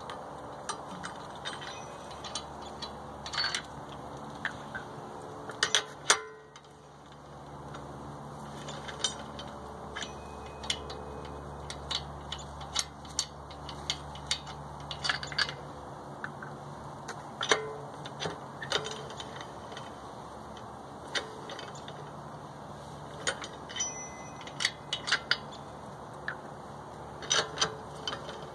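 Lug wrench working the lug nuts off a car wheel: irregular metal clicks and clinks, some in quick little clusters, over a steady low hum.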